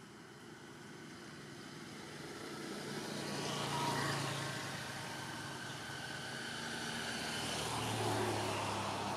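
Engine noise of passing motor vehicles with a steady low hum, swelling twice, about four seconds in and again near the end, then fading.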